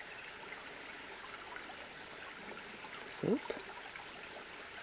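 Shallow muddy stream trickling steadily through a channel choked with branches and roots. About three seconds in, a short rising vocal call sounds once over the water.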